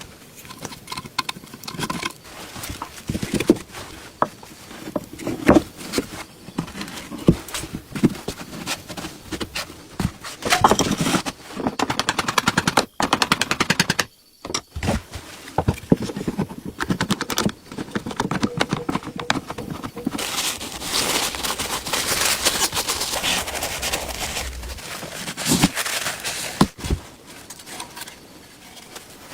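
Hands-on work on an antique sewing machine's metal parts: scattered knocks and clicks, with stretches of fast rattling clicks and scraping.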